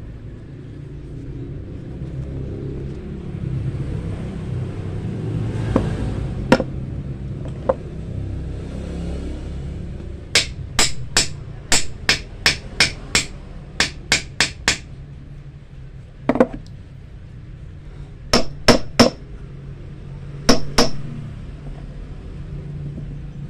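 Hammer tapping spring-steel wire flat on a small steel block: a quick run of about a dozen sharp metallic taps, then a few more in short groups. Before the taps, the rumble of passing road traffic swells and fades.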